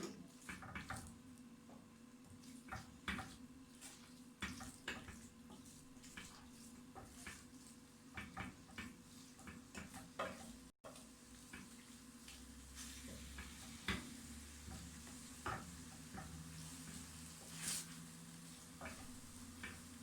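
A spoon stirring chicken meatballs into sauce in a cooking pot: scattered light clinks and scrapes of the utensil against the pot, with a brief dropout about halfway.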